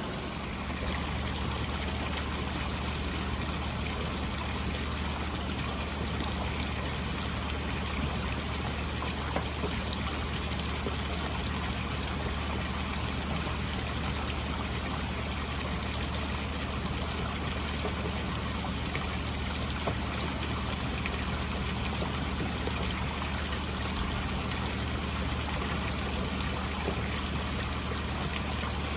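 Koi pond water running and trickling steadily, over a low steady hum.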